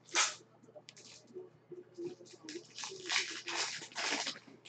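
Foil wrapper of a Panini Preferred basketball card pack being handled and torn open: a sharp crinkle about a quarter second in, then a run of crinkling and rustling as the foil is peeled apart in the second half.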